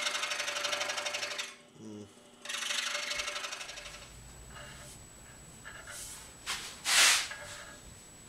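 Scroll saw cutting a square poplar dowel block: the fast-reciprocating blade makes a dense rasping over the motor's hum. The cutting breaks off for a moment about a second and a half in, runs again briefly, then stops, and a short loud hiss comes near the end.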